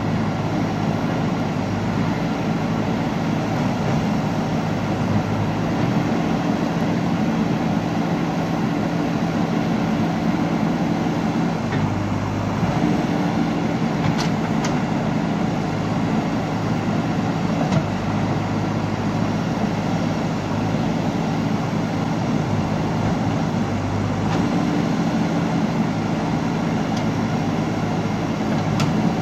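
JCB 3DX backhoe loader's diesel engine running steadily under hydraulic load as the backhoe arm digs and swings, its note shifting a few times as the load changes. A few faint knocks of stone or bucket come through.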